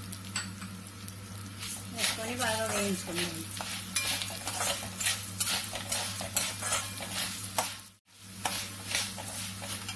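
Metal spatula stirring and scraping coriander seeds, chana dal and urad dal around a metal kadai in a little hot oil: quick, irregular scrapes with the seeds rattling against the pan over a light sizzle as they roast. The sound cuts out for a moment about eight seconds in.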